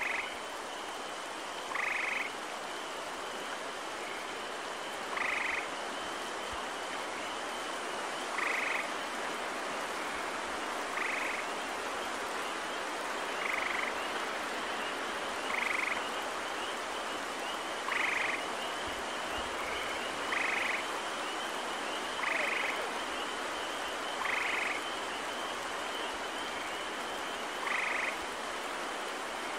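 Gray tree frogs calling: short trills, each about half a second long, repeating every two to three seconds. Beneath them run a steady hiss and a faint, continuous high chorus of spring peepers.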